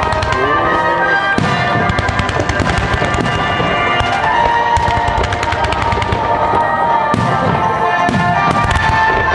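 Aerial fireworks bursting and crackling in quick, dense succession, mixed with background music.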